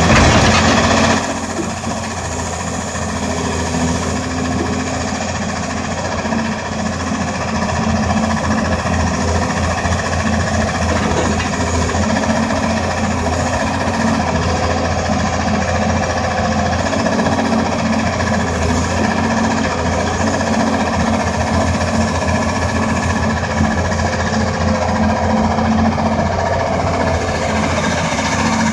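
Doosan DX300LC excavator's diesel engine running steadily under hydraulic load as the rock drill mast on its boom is swung and the machine slews. It is louder for about the first second, then settles into a steady, fast low pulsing with a constant hum.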